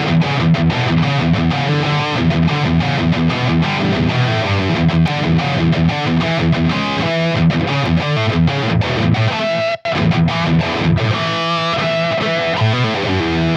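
Maybach Lester 59 electric guitar with humbuckers, played through a high-gain distorted amp: fast, choppy metal riffing with a brief break about ten seconds in.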